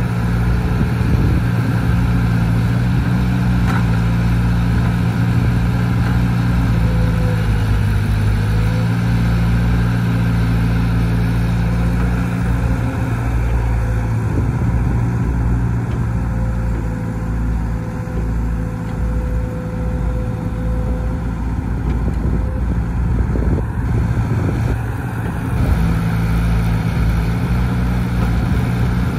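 Crawler excavator's diesel engine running steadily under load as it digs and swings. Its engine note dips lower through the middle and picks back up near the end.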